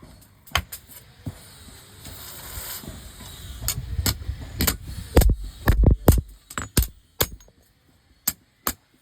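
Irregular sharp metallic clinks and knocks from work on a garden machete blade, with heavier thumps clustered around the middle.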